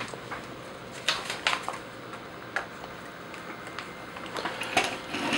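Handling noise from a toy robot figure: plastic and die-cast parts giving a scattered series of sharp clicks and taps as they are moved and fitted, with a small cluster of clicks near the end.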